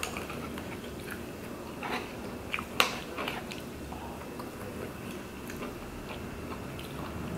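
A person eating tteokbokki: metal chopsticks click against a steel pan a few times, the sharpest click a little under three seconds in, with quiet chewing.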